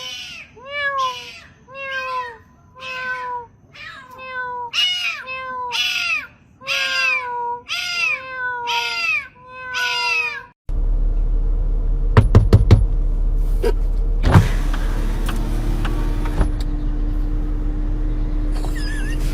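A cat meowing over and over, about once a second, each meow rising and then falling in pitch. The meows stop abruptly about ten seconds in, giving way to a steady low hum with a few sharp clicks.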